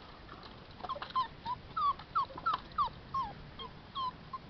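Border collie puppies whimpering: a string of about ten short, high whines, several sliding down in pitch, starting about a second in.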